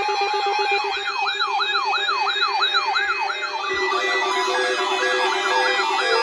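Electronic siren tones layered together: fast repeating yelp sweeps, about two or three a second, over a pulsing steady tone. A little past halfway they change to an alternating two-tone hi-lo pattern, with slow rising wails near the end.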